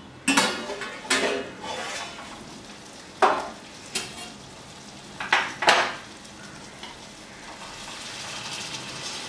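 A steel lid clanks off a kadai near the start. Then a wooden spatula stirs chicken curry simmering in the pan, knocking against the pan several times over a steady sizzle: the chicken has cooked about 25 minutes on a low flame.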